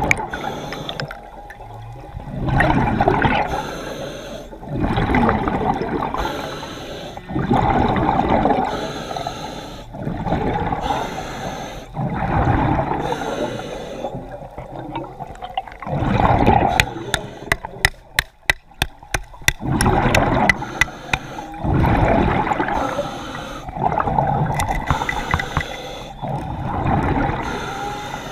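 A diver breathing underwater: a noisy rush of air and water repeats every two to three seconds, one pulse per breath. About two-thirds of the way through, a run of sharp clicks comes at about three a second.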